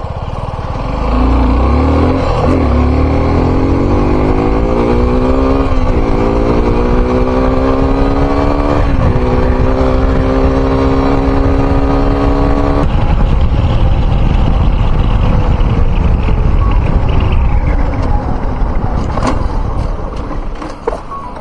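Suzuki motorcycle engine accelerating hard from a standstill, its pitch climbing in each gear with upshifts about two and a half, six and nine seconds in. From about thirteen seconds the engine note gives way to steady wind and road rush at speed, which fades as the bike slows near the end.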